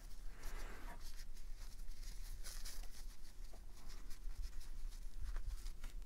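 A microfiber cloth wiping and drying small metal knife parts, the handle scale and blade: faint rubbing, with scattered light clicks as the parts are handled.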